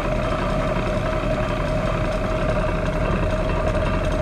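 Covington 6-inch combination lapidary cabbing machine running, its diamond grinding wheels spinning with no stone on them: a steady motor hum with a constant tone.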